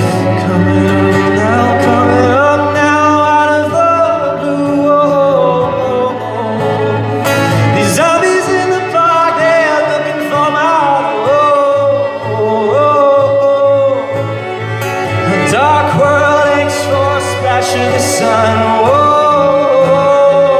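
Male singer performing a pop-rock song live, his voice gliding between long held notes over sustained instrumental accompaniment.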